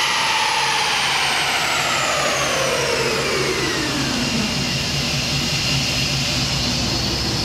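Car engine on a chassis dyno coming down off a pull with its exhaust cutouts open: the revs fall over the first four seconds or so, then it settles to a steady idle.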